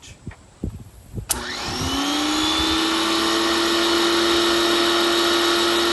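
Powerhouse Platinum Edition electric pressure washer starting with a click about a second in, its motor winding up with a rising whine and then running steadily with a loud hiss as it sprays through the black watering tip.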